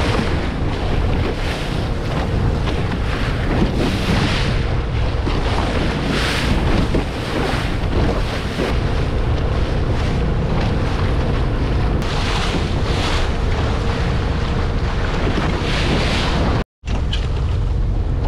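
Heavy wind noise on the microphone of a boat under way across open water, with a faint steady hum underneath for the first half. The sound drops out for an instant near the end.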